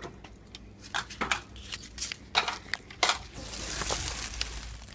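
Plastic bag crinkling and rustling as it is handled: a few sharp crackles, then a steadier rustle over the last second and a half.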